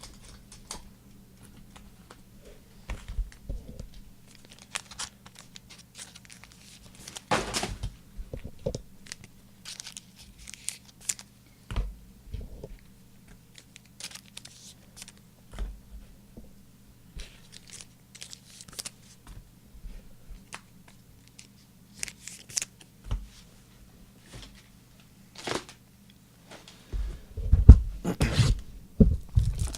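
Plastic wrapping and trading-card packs being torn open and crumpled, with short scattered rustles and taps of cards being handled. A denser, louder run of crinkling comes near the end, over a faint steady hum that stops there.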